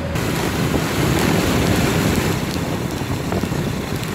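Heavy wind buffeting the microphone on a moving motorbike.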